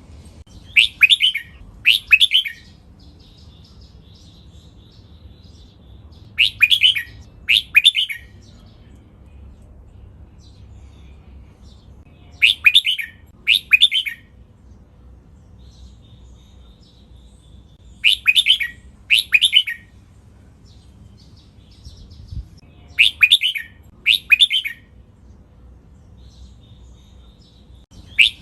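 Red-whiskered bulbul singing its doubled song: two short, loud phrases close together, repeated about every five to six seconds, five times over, with faint high twittering between them.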